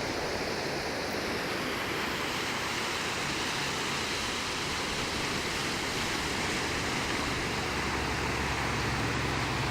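Ocean surf washing onto the beach: a steady rush of waves with a low rumble underneath.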